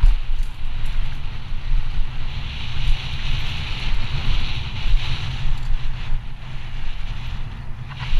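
Wind rushing over the microphone of a mountain bike's onboard camera during a fast descent, with the tyres hissing and crunching over rocky and gravel trail; the hiss is loudest a few seconds in, over the rocky section.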